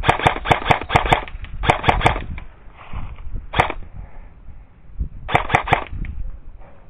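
Airsoft rifle firing in quick bursts of rapid shots: a long burst at the start, a shorter one about two seconds in, a single shot midway and a last short burst about five seconds in.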